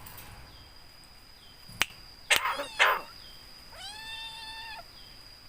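Javan myna calling: a sharp click, then two short harsh rasping calls, then one drawn-out whistled call that rises and then holds.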